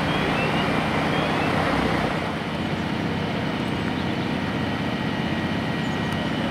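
Heavy diesel engines of fire appliances running steadily, with a slight drop in level about two seconds in.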